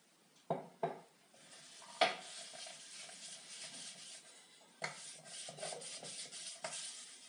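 Cloth rubbing linseed oil into an end-grain wooden cutting board in quick back-and-forth strokes, a continuous scratchy swish. A few sharp knocks stand out: two about half a second in, then single ones about two seconds in, near five seconds and near the end.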